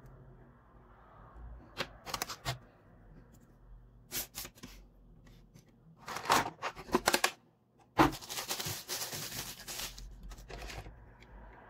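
Hands handling a clear plastic blister tray and hair clipper parts: scattered clicks and taps, then about two seconds of continuous plastic crackling a little past the middle.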